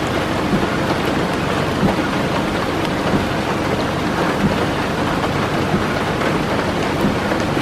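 Torrential thunderstorm rain pouring down, a dense steady hiss with scattered louder drop hits.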